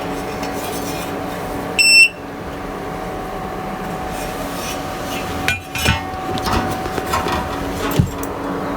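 A steady hum, with a short, sharp electronic beep about two seconds in, then a few light clicks and knocks near the end.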